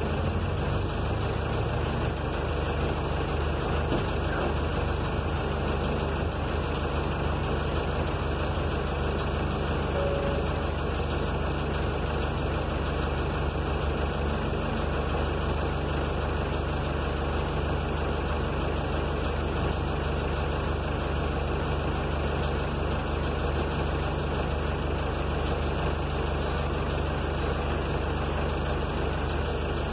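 City bus's diesel engine idling steadily, heard from inside the bus.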